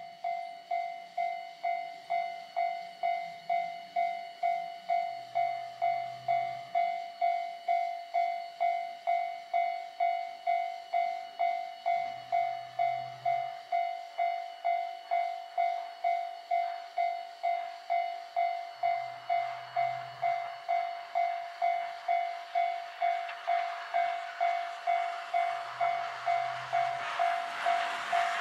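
Railway level-crossing warning bell ringing steadily, about two strikes a second, as a steam train approaches. In the last five seconds the noise of the approaching 1930-built C10 No. 8 steam locomotive builds up and overtakes the bell.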